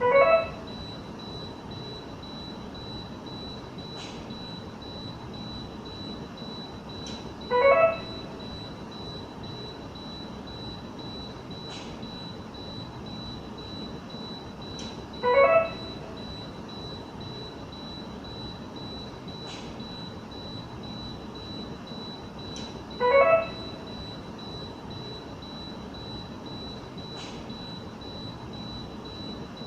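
Infusion pump alarm: a short electronic beep sounding four times, about every eight seconds, over a steady high-pitched tone. Faint ticks come roughly every four seconds between the beeps.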